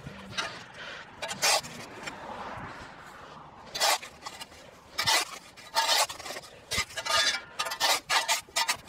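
A long-handled hand tool scraping soil and grass along the edge of a concrete footpath, in a dozen or so irregular short rasping strokes.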